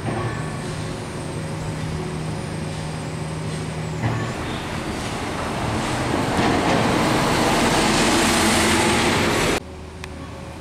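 City bus running close by in street traffic: a steady engine hum, then a swelling rush of engine and road noise as it passes, which cuts off abruptly near the end.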